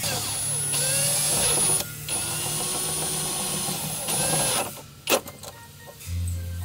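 Power drill driving screws, the motor running in two spells with a high whine and its pitch sagging and rising under load. A sharp click follows about five seconds in, then a low hum near the end.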